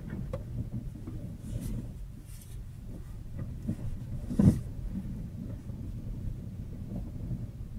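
Low, steady rumble inside a car cabin from Continental TS860 winter tyres rolling over rutted, packed snow, with a few light knocks and one sharp thump about four and a half seconds in.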